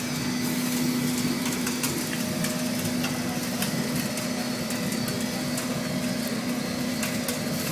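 Industrial sawdust burner running at full fire: its blower and flame make a steady noise with a constant low hum and scattered small ticks.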